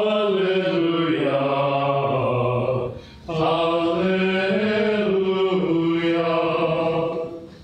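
A man's voice singing an unaccompanied, drawn-out Alleluia chant as the Gospel acclamation: two long phrases of held notes with a short breath about three seconds in. The singing ends just before the close.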